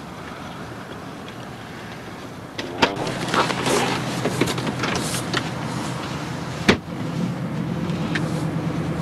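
River barge's diesel engine running steadily as the barge passes, a low hum that starts about two and a half seconds in and grows stronger in the second half. Two sharp clicks, about three seconds in and near seven seconds.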